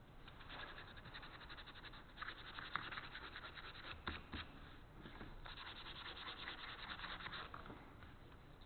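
Sandpaper rubbed by hand over a 2x4 wood workpiece in quick back-and-forth strokes, in three runs with short pauses between them. There are a couple of light knocks about four seconds in.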